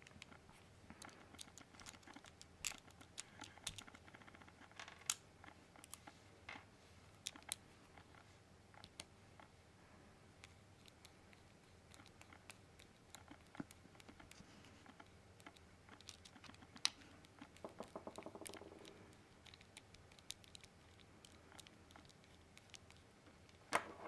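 Light scattered clicks and taps of small metal parts of a vape mod's button assembly being handled and screwed together with a precision screwdriver, with a short rapid rattle about three quarters of the way through and a sharper click at the end.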